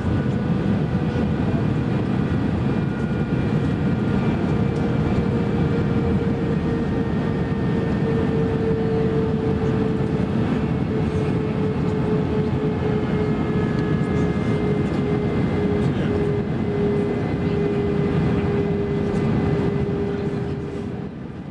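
Airbus A321 cabin noise heard from a window seat: a steady rush of airflow and the IAE V2500 turbofans, with an engine hum that slowly falls in pitch. The overall noise dips briefly near the end.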